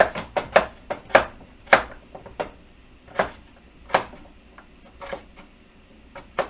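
Kitchen knife dicing a potato on a bamboo cutting board, the blade knocking through onto the wood in sharp, separate strokes. The knocks come quickly in the first two seconds, then slow to about one a second.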